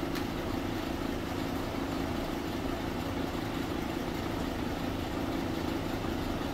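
A steady low droning hum, even and unchanging throughout.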